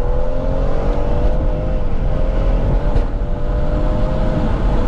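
BMW M140i's stage-one tuned B58 turbocharged straight-six pulling under acceleration, heard from inside the cabin over a deep rumble. The engine note climbs slowly, holds, and drops away near the end.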